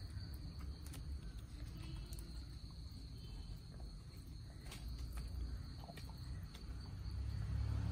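Chickens foraging on gravelly ground, with scattered light clicks and taps of pecking and scratching, over a steady high insect drone and a low rumble.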